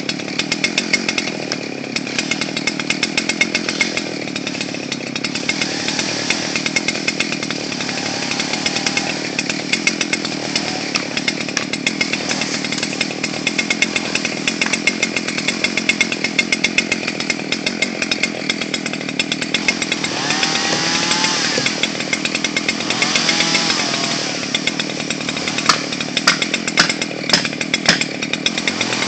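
Chainsaw running under load, cutting into a storm-damaged standing stump. Its pitch wavers twice a little past two-thirds of the way through, and there are a few sharp clicks near the end.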